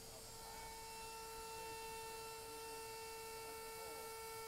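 Modified trim router running steadily as it carves into a wooden sign: a faint, steady high whine.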